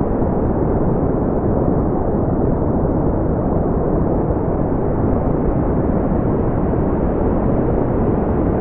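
Brown noise: a steady, even rumbling hiss, strongest in the low end and dropping away in the highs, with no changes or events.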